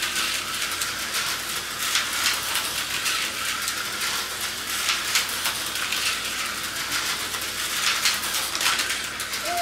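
Tyco slot cars running laps around a plastic track: a steady rattling whir dotted with many quick small clicks.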